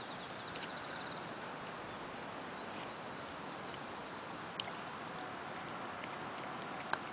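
Labrador-mix dog gnawing on a clothespin, with a few sharp clicks of teeth on it, clearest about four and a half seconds in and near the end, over a steady outdoor hiss.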